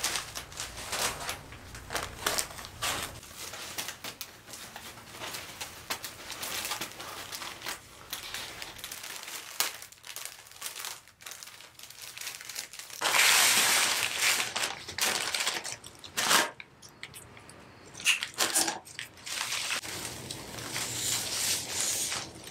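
Clear cellophane and plastic wrapping crinkling and rustling as a flower bouquet is unwrapped and handled, in irregular bursts, with a louder, denser stretch of crinkling a little past halfway.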